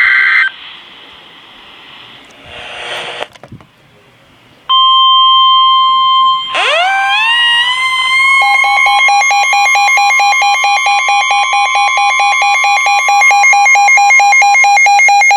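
The tail of an EAS/SAME digital header burst, then about five seconds in the steady warning alarm tone of a NOAA Weather Radio alert begins. About two seconds later a second electronic alarm sweeps up in pitch and turns into a rapid pulsing beep alongside the steady tone.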